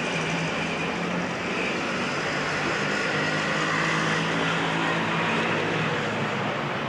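A steady engine-like drone with an even hiss and a low hum that shifts slightly in pitch about three seconds in.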